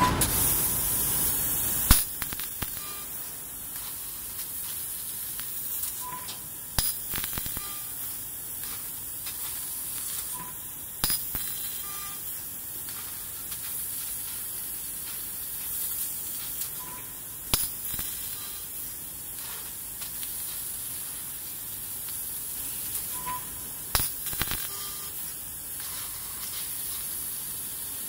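6 kW fiber laser cutting 16 mm mild steel: a steady high hiss of the assist-gas jet and molten spatter blowing through the cut, with occasional sharp cracks. The hiss is louder for the first two seconds and drops after a sharp crack.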